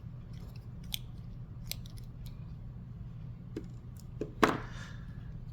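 Small clicks and taps of hands unscrewing a plastic washer from the back of a luer lock fitting: a few light clicks, then one louder click a little after four seconds in.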